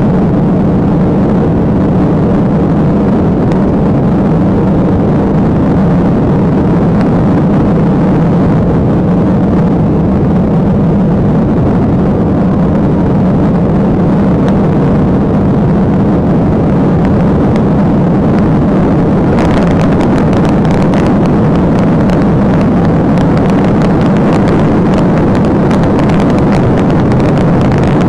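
Police patrol car's cabin at about 117 to 136 mph: a loud, steady drone of engine, tyres and wind as the car keeps accelerating. About two-thirds of the way through, a crackling hiss joins in.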